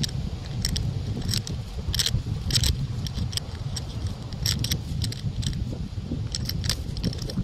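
Footsteps on a park path, a sharp step about every two-thirds of a second, over a steady low rumble of wind and distant traffic.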